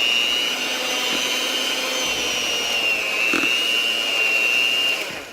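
Electric hand mixer running steadily with a high whine, beating cake batter. It switches off about five seconds in.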